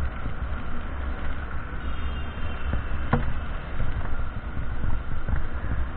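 Motorcycle riding noise on a wet road: a steady low wind rumble on the bike-mounted microphone over the motorcycle's engine and tyres on wet tarmac. There is one brief sharp sound about three seconds in.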